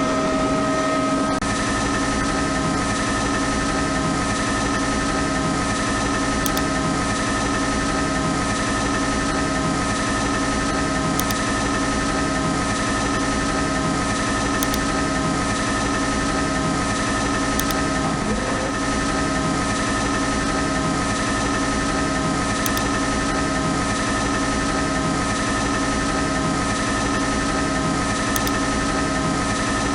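CNC lathe running: a steady machine hum with several fixed tones over a low pulse that repeats about once a second, starting abruptly.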